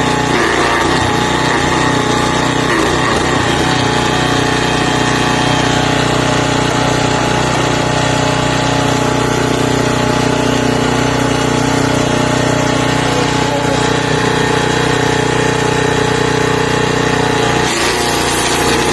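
Forest Master FM6DD wood chipper's 6 hp petrol engine running steadily at speed, with a brief dip in its note near the end.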